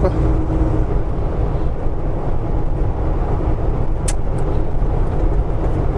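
Steady low drone of a semi-truck's diesel engine and tyres at highway speed, heard from inside the cab. A single sharp click comes about four seconds in.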